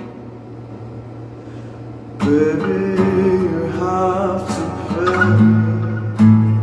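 An acoustic guitar chord rings out and fades, then a voice starts singing about two seconds in over slowly strummed acoustic guitar.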